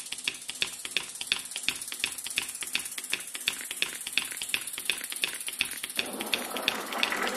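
Rapid, evenly spaced clicking, like a ticking or typing sound effect, over a faint high hiss. About six seconds in, a rising hum begins to swell beneath it.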